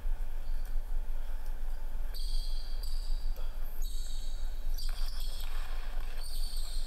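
A basketball is dribbled on a hardwood gym floor. From about two seconds in there are several short high-pitched squeaks, typical of sneakers on the hardwood.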